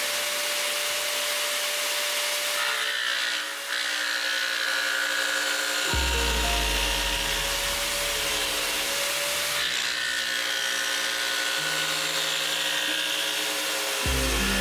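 A table-mounted power saw with a thin reciprocating blade running steadily as it cuts plywood, a constant motor whine with the rasp of the blade in the wood. Background music plays along with it.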